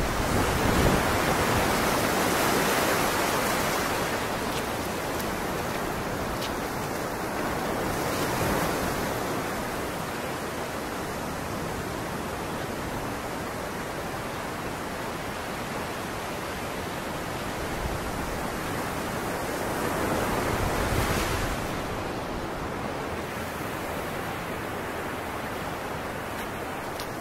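Ocean surf washing up the shore, a steady rush that swells louder about two seconds in and again around twenty seconds in as waves come in, with some wind on the microphone.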